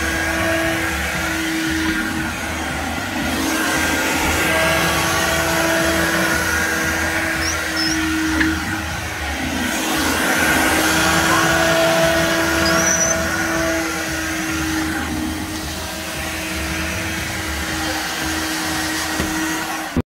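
Handheld battery window vacuum with a squeegee head running as it is drawn over wet glass: a steady motor hum and suction rush, its loudness wavering slightly as the head moves.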